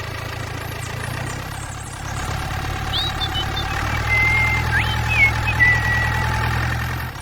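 A small engine running steadily, its hum getting louder about two seconds in. Short, high squeaky chirps sound over it from about three seconds in.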